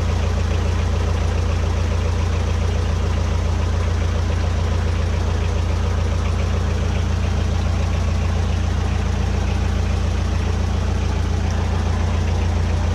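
A boat engine idling steadily: a deep, even drone that holds the same speed throughout.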